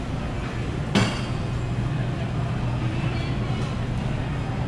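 Steady low machinery hum of a large grocery store, with one sharp clink about a second in.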